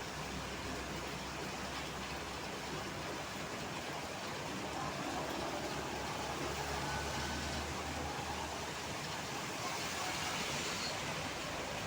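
Steady hiss of heavy rain mixed with road traffic on wet roads, with a low engine rumble from passing vehicles that swells slightly midway.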